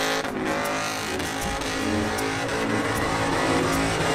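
Car engine revving hard while the car spins donuts, its pitch rising and falling as the throttle is worked.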